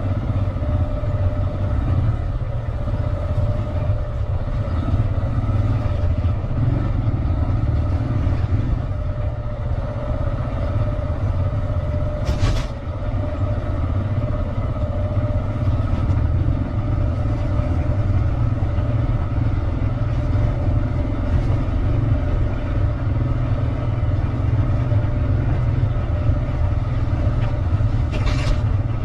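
Motor vehicle driving steadily: a constant low engine and road rumble with a faint steady whine above it. Two brief hisses come through, one about twelve seconds in and one near the end.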